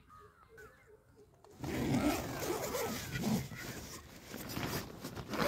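Tent door zipper being pulled open, with the nylon tent fabric rustling and shifting, starting about a second and a half in. Before it, faint bird chirps.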